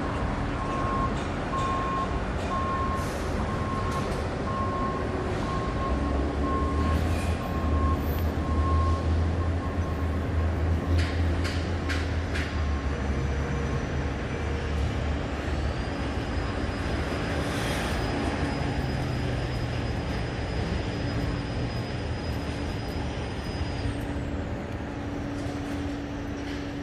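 Downtown street traffic: a heavy vehicle rumbles past, loudest a third of the way in, over a steady city hum. A short beep repeats about once a second during the first few seconds.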